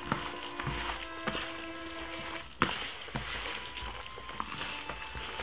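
Gloved hands rubbing a wet marinade into raw chicken pieces in a plastic bowl: squelching and rustling with a few clicks, and one sharp knock about two and a half seconds in. Soft background music plays underneath.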